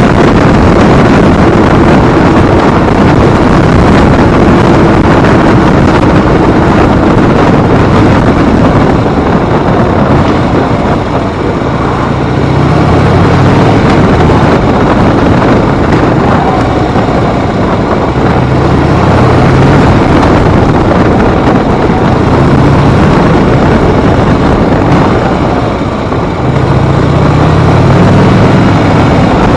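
Harley-Davidson V-twin motorcycle engine running while riding, its pitch climbing in short steps several times as it accelerates, under steady wind rush on the microphone.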